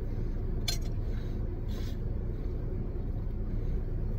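Steady low hum of a car's cabin with the engine idling, broken by two brief rustling handling sounds, about a second and nearly two seconds in, as a sandwich is picked up.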